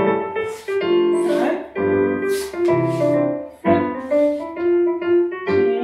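Piano accompaniment for ballet exercises, in a steady beat with a low bass note and chord about once a second.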